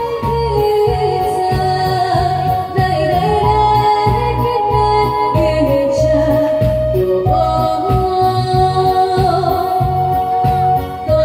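A woman singing a Taiwanese Hokkien song into a microphone over a loud backing track with a steady drum beat, amplified through a stage sound system.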